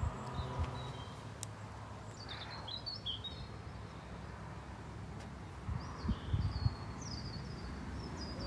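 Small birds chirping in short high calls, a few about two and a half seconds in and more in the last two seconds. A steady mechanical hum stops about a second in, and a few low thumps come a little after six seconds.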